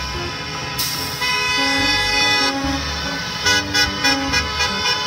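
School bus horns honking in long held blasts from about a second in, with a few short toots near the end.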